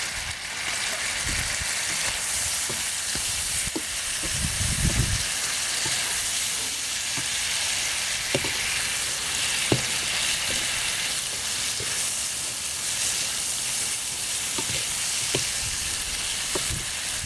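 Sliced octopus with onion, celery and peppers sizzling steadily in a frying pan as it is stirred, with scattered sharp clicks of the utensil against the pan.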